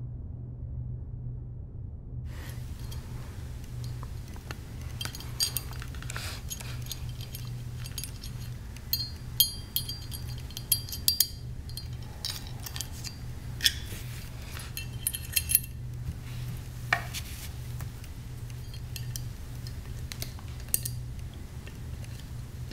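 Scattered light clinks and taps of hard objects, several with a brief high ring, over a steady low hum.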